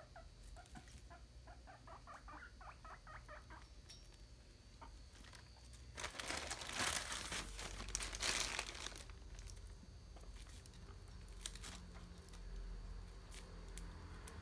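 Guinea pig wheeking: a rapid string of short, high squeaking calls, the begging call given when food is offered. About six seconds in comes a louder crinkling rustle lasting about three seconds.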